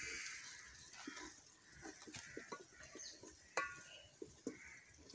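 Wooden spoon stirring chopped tomatoes in an aluminium pot: a scatter of soft knocks and scrapes, with a few faint animal calls in the background.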